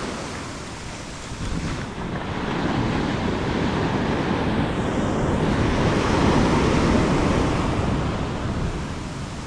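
Ocean surf washing onto a beach, swelling to its loudest about six to seven seconds in and then easing off.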